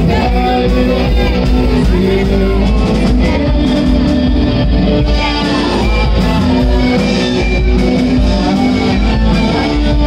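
Live rock band playing at a steady, loud level: electric guitars, electric bass and drum kit.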